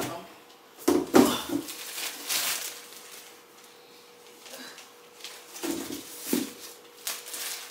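Plastic mailer bag crinkling and a cardboard box knocking as they are handled, in a few separate bursts, over a faint steady hum.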